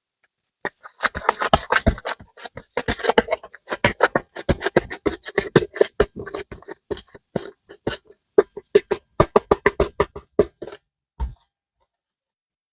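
Soft modelling clay squished and pulled by hand, giving a rapid run of sticky pops and clicks. They come thickest in the first few seconds, turn sparser, and stop about a second and a half before the end.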